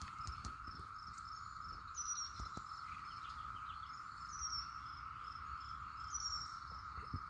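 Insect chorus: a steady high trill with a higher chirp pulsing about four times a second over it. Three short, higher falling chirps come in at intervals of about two seconds.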